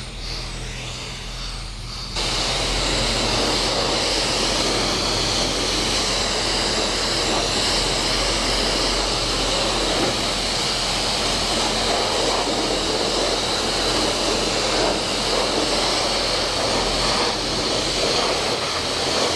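Self-serve car wash pressure-washer wand on the rinse setting, blasting a steady hiss of water onto a dirt bike and the wet concrete floor. It gets markedly louder about two seconds in and then holds steady.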